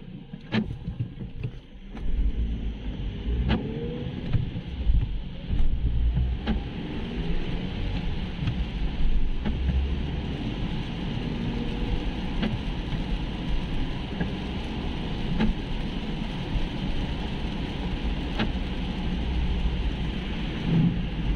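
Car cabin sound as a car pulls away from a stop about two seconds in and drives on a wet road: a low rumble of engine and tyres with a rising hiss of spray. Windscreen wipers click about every three seconds.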